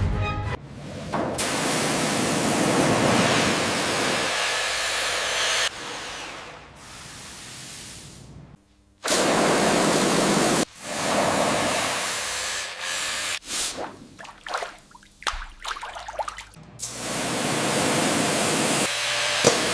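Water spray hissing against rusted metal in several stretches that start and stop abruptly, with short gaps and quieter patches between them.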